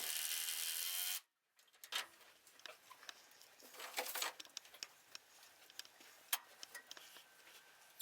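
Power drill running steadily, then stopping about a second in, followed by scattered faint clicks and knocks.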